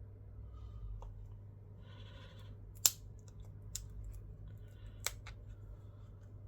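Small hand tools clicking and scraping on the parts of a Samsung Galaxy A70 as the ear speaker's frame is worked off. There are a few scattered sharp clicks, the loudest about three seconds in and another about five seconds in, with a brief scraping hiss just before the loudest one.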